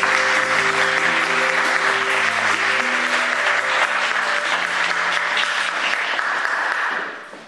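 Audience applauding, with held notes of music underneath; the clapping dies away near the end.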